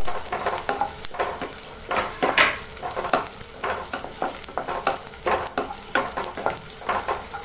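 Cashew pieces and raisins sizzling in hot ghee in a pan as a wooden spatula stirs them, with frequent, irregular scraping strokes against the pan.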